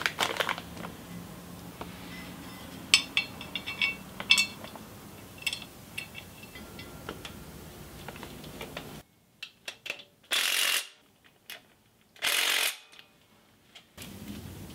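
Light metallic clinks and taps of engine parts being handled and fitted onto the cylinder head's exhaust studs, some ringing briefly. About ten seconds in come two short hissing noises, each under a second long.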